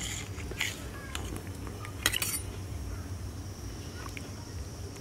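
Steel serving spoon clinking against stainless steel pot and bowl while curry is ladled out: a few light clinks, the loudest a quick double clink about two seconds in.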